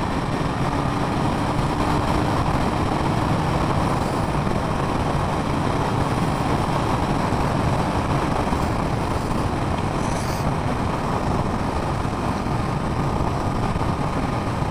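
Steady rush of wind noise over an action camera's microphone on a motorcycle moving at road speed, with the bike's engine and tyre noise beneath it.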